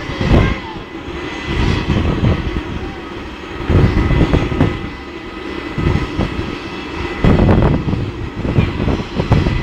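Jet aircraft noise on an airport apron: a steady high whine over an uneven low rumble that swells and fades every second or two.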